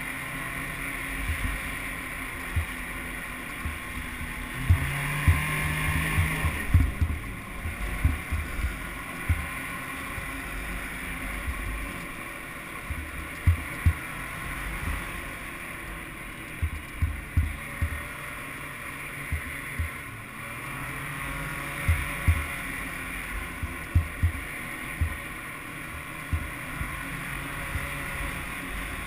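Snowmobile engine running under way, its tone coming up clearly twice as it is throttled up, with frequent short low thumps.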